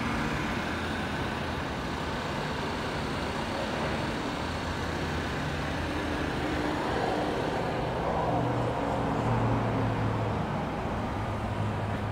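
Steady low engine hum, like a heavy diesel truck idling, under a wash of outdoor noise; the hum grows a little louder around eight to ten seconds in.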